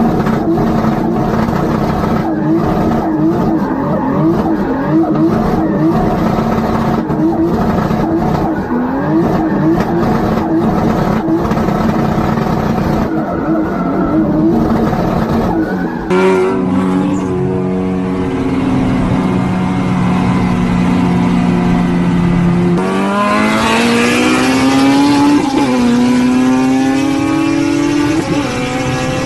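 Turbocharged car engines being revved: first a run of quick throttle blips, each rev rising and dropping back. Then, after a cut about halfway through, an engine holds a steady low speed before being revved up sharply and held at high revs, with a couple of brief dips.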